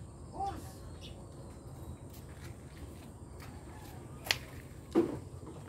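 Footsteps walking along a path, about two steps a second, with a sharp click about four seconds in and a short, louder knock-like sound just before the end.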